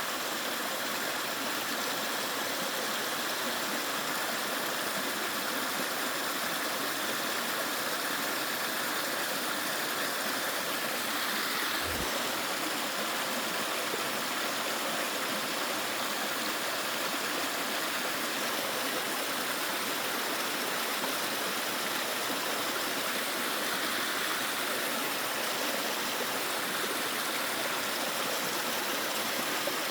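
Mountain valley stream running, a steady even rush of water.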